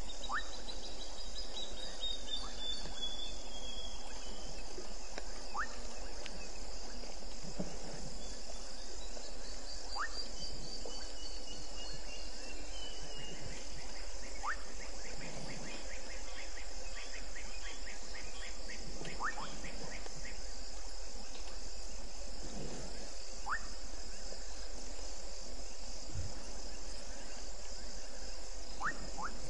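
Steady insect chorus, a fast, even pulsing trill that continues throughout. Over it come a few whistled calls: two long falling whistles, one at the start and one about ten seconds in, a quick run of ticks midway, and scattered short rising chirps.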